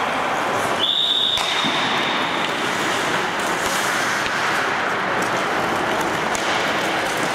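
Ice hockey practice: skate blades scraping and carving on the ice over a steady arena hiss, with scattered sharp clacks of sticks striking pucks. A high steady tone starts about a second in and fades over the next couple of seconds.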